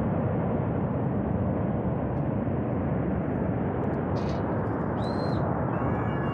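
Flash-flood torrent rushing down a Himalayan river valley: a dense, steady rush of fast water. Near the end a person's long, held call rises over it.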